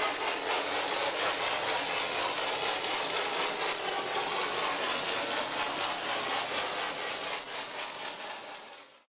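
Super Tornado mortar spraying machine running as it sprays chapisco (cement roughcast): a steady hiss with a fast mechanical rattle. It fades near the end and cuts off suddenly.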